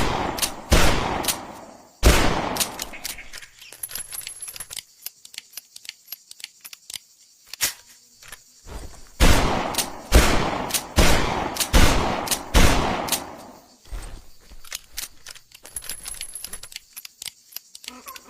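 Smith & Wesson Model 29 .44 Magnum revolver firing: a few shots about a second apart, each with a long ringing tail. Then comes a pause of several seconds with light clicks and knocks, and a second string of about six shots about a second apart.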